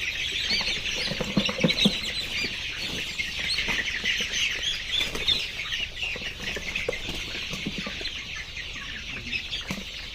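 A flock of laying hens clucking and calling together in a dense, continuous chatter, with a few soft knocks near the start.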